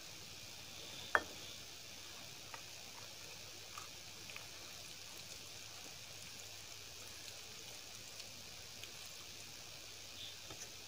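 Hand eating from a steel thali: one sharp metallic clink about a second in, as the small steel bowl knocks the plate after the dal is poured, then faint small ticks and squishes as fingers mix dal into rice, over a steady hiss.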